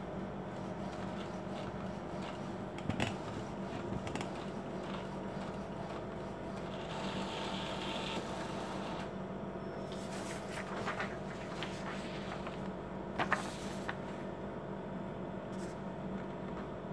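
Epson L4160 ink-tank printer printing a status sheet with a nozzle-check pattern: a steady mechanical whir broken by a few sharp clicks as the page feeds through and is pushed out onto the tray. Toward the end the paper rustles as the printed sheet is handled.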